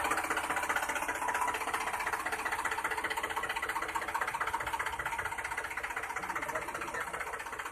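A steady, fast mechanical rattling like a small engine running, fading slowly.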